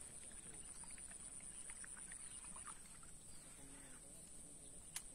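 Near silence at the waterside: a faint steady high-pitched whine with a few faint chirps in the first half, and one sharp click near the end.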